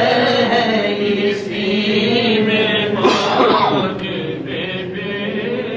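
A man's unaccompanied voice chanting the closing of an Urdu naat, drawn out and wavering; about three seconds in, further voices come in with rising and falling calls before the sound fades.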